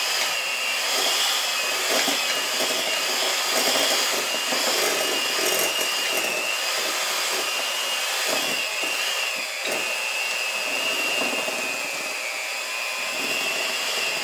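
Handheld electric mixer starting up and running steadily, its beaters whipping softened cream cheese, sugar and vanilla in a glass bowl, with a constant motor whine.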